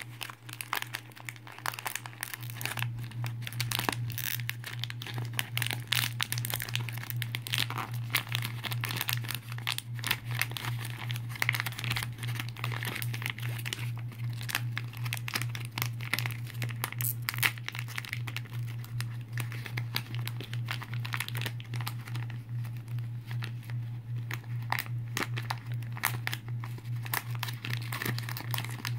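Pink plastic Pikmi Pops wrapper crinkling and crumpling in the hands as it is handled and opened, a busy run of crackles, over a steady low hum.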